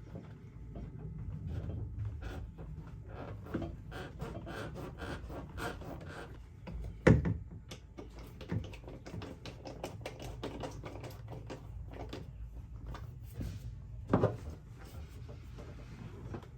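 Irregular light clicks and knocks of parts and tools being handled, with two sharper, louder knocks about seven and fourteen seconds in.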